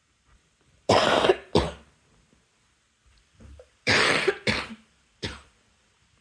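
A person coughing in two short fits: two harsh coughs about a second in, then three more about four seconds in.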